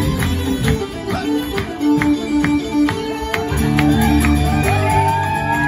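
Live traditional folk tune on fiddle, uilleann pipes and acoustic guitar: the guitar strums a steady rhythm under the melody, with sustained low notes and sliding notes in the upper line through the second half.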